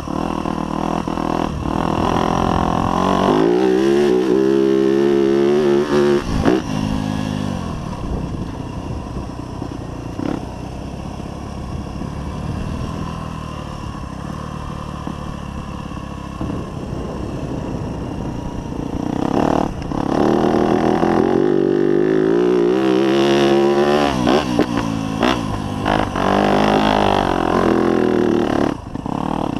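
Yamaha YZ250F dirt bike's four-stroke single-cylinder engine heard from onboard, revving up hard a few seconds in and again from about twenty seconds in, with lower, steadier running in between.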